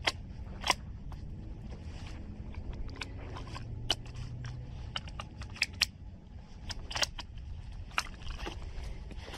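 Handling of a Steyr Scout bolt-action rifle between shots: irregular sharp clicks and clacks of its parts, a handful of them louder, over a low rumble of wind on the microphone.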